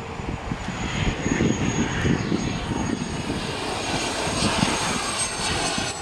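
A small jet aeroplane flying over, its engines a steady rushing noise with a high turbine whine that grows louder through the clip.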